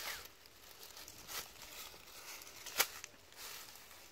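Dry leaf litter and netting rustling and crackling as hands pull and gather a cast net on the ground, in short irregular bursts with one sharp crackle about two-thirds of the way through.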